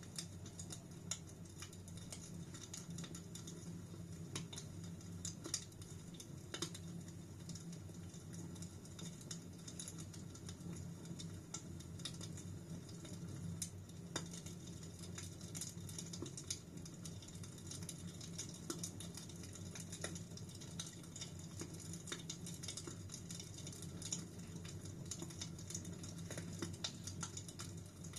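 Wood fire crackling in a fireplace: a steady stream of irregular small clicks and occasional sharper pops over a low, even rumble.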